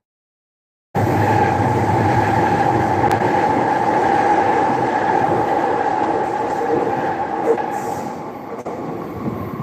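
A train running past, a loud steady rumble with a constant hum in it, that begins to fade over the last couple of seconds. The sound is cut out for about the first second and comes back in abruptly.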